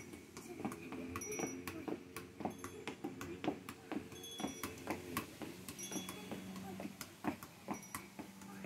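Soccer ball being juggled: irregular dull taps, about two or three a second, as it is kept in the air off feet, thighs and head.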